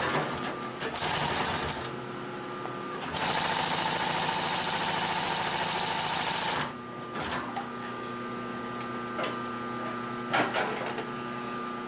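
Consew 744R-30 walking-foot (triple-feed) industrial sewing machine stitching through thick folded webbing. A short burst of stitching about a second in is followed by a steady run of about three and a half seconds that stops abruptly. A steady hum sits underneath, with a few light clicks after the run.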